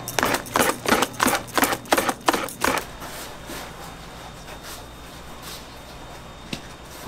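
Wire whisk beating thick batter in a plastic bowl, quick strokes about four to five a second, stopping about three seconds in. After that, a low steady kitchen background with a single click near the end.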